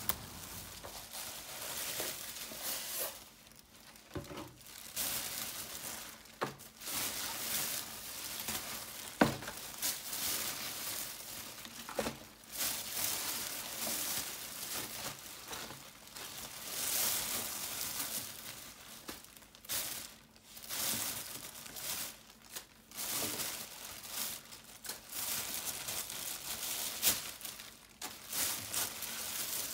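Fresh salad leaves and greens rustling and crinkling as they are handled and dropped into a plastic washing-up bowl, in irregular bursts with a couple of sharp clicks partway through.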